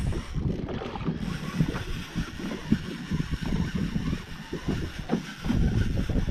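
Wind buffeting the microphone, an uneven low rumble, over water slapping against the hull of a small boat at sea.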